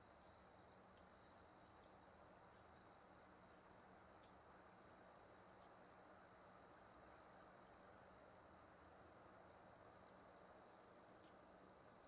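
Near silence: a faint, steady high-pitched whine over hiss, with a few faint ticks.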